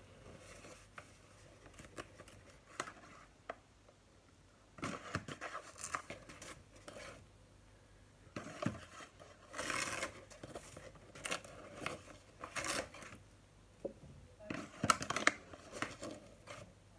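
Tablespoon scooping caster sugar out of a bag and tipping it into a mug: irregular bursts of scraping and bag rustling, repeated several times.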